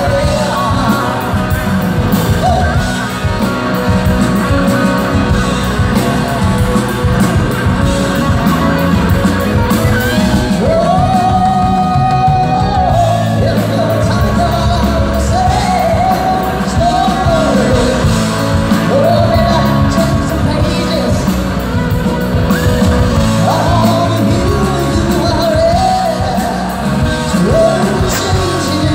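Live rock band playing a song with a sung lead vocal over electric guitars, keyboard, bass and drum kit.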